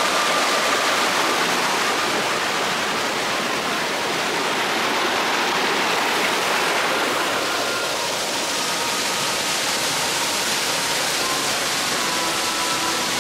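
Steady rush of falling water, a continuous even splashing with no breaks.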